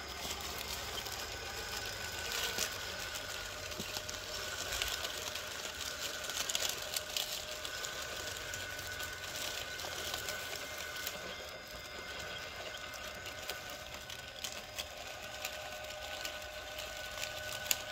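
Electric RC rock crawler's brushless motor and TGH 210 transmission whining steadily at crawling speed, with scattered crackles of dry leaves and grit under the tires.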